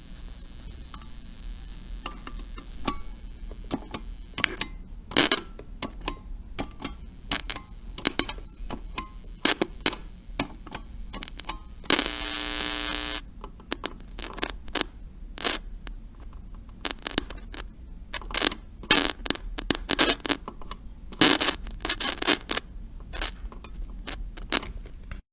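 Walkie-talkie radio interference: irregular crackles and clicks over a low steady hum, with one buzzy tone lasting about a second near the middle.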